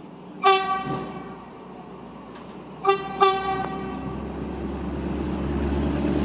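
Diesel locomotive of a freight train sounding its horn on approach: one short blast, then two quick toots close together a couple of seconds later. The engine's low rumble grows steadily louder as the locomotive nears.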